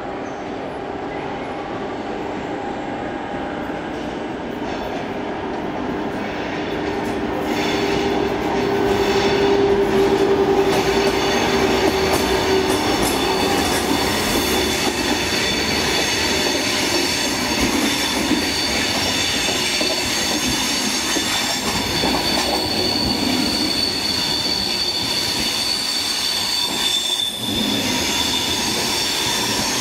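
Thalys PBKA high-speed train rolling slowly past along the platform as it pulls out, growing louder as it draws near. A steady hum is joined, from about twelve seconds in, by a high steady squeal that holds until near the end.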